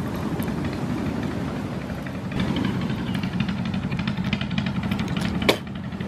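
A motor engine running steadily, a low rumble with fast rattling ticks that grows louder about two seconds in. A single sharp click comes near the end.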